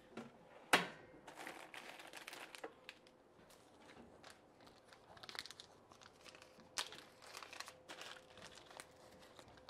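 Crinkling and rustling of hand-handled packaging with scattered light clicks and one sharp click under a second in, as a twist tie is got out and handled.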